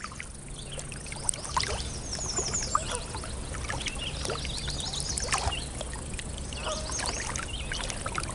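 Birds chirping and singing, with a quick run of repeated high notes about two seconds in, over the steady lapping and trickling of water around a paddled kayak.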